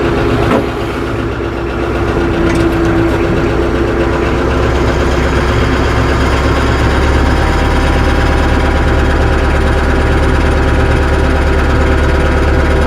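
Tractor engine running steadily as the tractor creeps forward over its tire chains, with a single sharp knock about half a second in.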